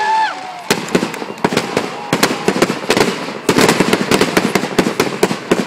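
Fireworks display: a rapid, irregular run of sharp bangs and crackles, thickest about halfway through, with a short whistle at the very start.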